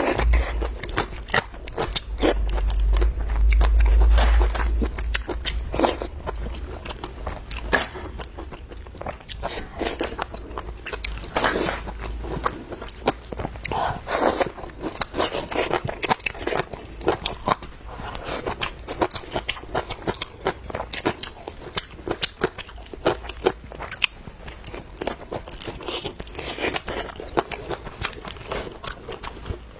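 Crunchy bites and chewing of radish strips, many irregular crunches throughout. A deep low rumble lies under the first twelve seconds or so.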